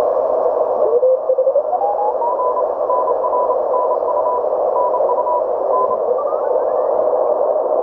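MFJ-9340 Cub 40-metre CW receiver playing through its speaker while being tuned across the band: a steady hiss of band noise through its narrow filter. A Morse code signal rises in pitch as it is tuned in, then keys dots and dashes at a fixed pitch, and near the end another signal slides up in pitch as the tuning moves on.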